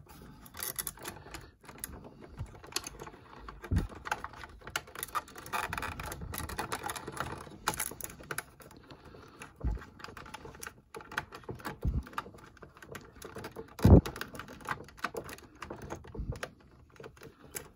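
Hard plastic clicking and rattling from a Playmates Galileo shuttlecraft toy and its Captain Kirk action figure being handled, as the figure is pushed into the cockpit seat. Louder knocks come now and then, the loudest about 14 seconds in.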